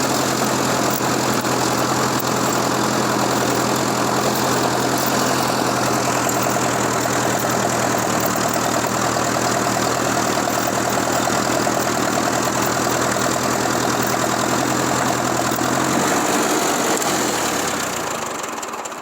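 A vehicle engine running steadily, then slowing in pitch and dying away near the end.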